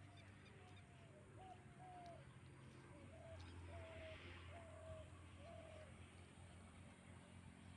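A bird calling faintly: a string of short, slightly falling notes, about eight of them in the first six seconds, over otherwise near silence.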